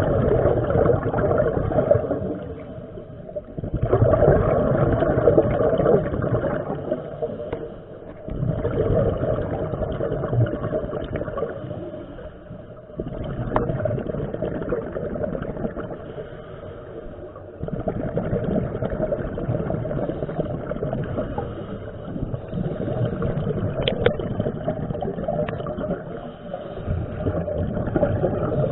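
Scuba regulator exhaust bubbling underwater: a diver's breathing, gurgling out in bursts every four or five seconds with quieter gaps between.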